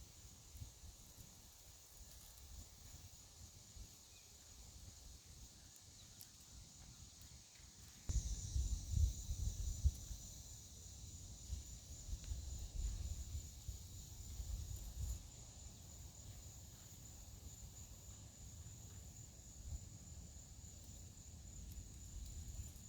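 Faint, steady high-pitched drone of insects, crickets or cicadas, over an uneven low rumble that gets suddenly louder about a third of the way in and stays up.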